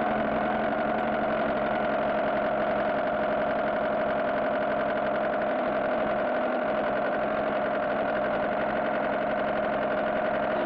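Car engine idling steadily, a recorded sound effect standing in for the Porsche 911's engine, with an even level throughout.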